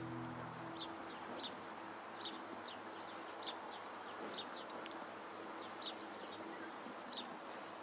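Quiet night ambience: a steady soft hiss with short high chirps, singly and in pairs, every second or so. The tail of soft music fades out in the first second.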